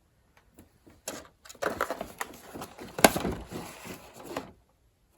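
Toiletry bottles and boxes being rummaged through and moved about in a bathroom cabinet: rustling with scattered light knocks and clicks, and one sharper knock about three seconds in.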